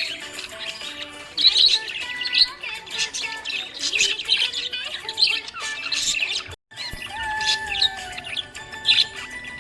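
Small pet parrots chirping and twittering in quick repeated bursts, over steady held tones of background music. The sound cuts out for a moment about two-thirds of the way through.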